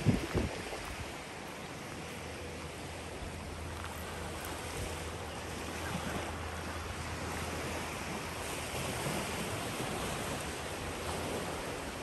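Small waves washing onto a sandy beach, a steady surf hiss mixed with light wind on the microphone, with a couple of soft footsteps on sand at the start.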